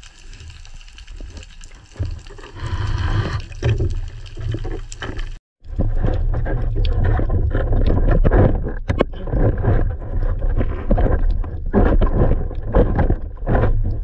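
Underwater camera sound of water gurgling and rushing around the housing as a diver moves, with a deep rumble and many scattered clicks and knocks. The sound drops out for a moment about five seconds in and comes back louder.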